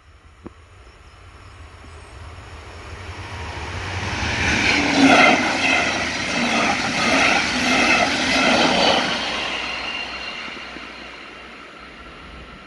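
Red double-deck DB Regio passenger train passing over a level crossing: its running noise swells over about four seconds, stays loud with a repeating rhythmic clatter for several seconds, then fades away.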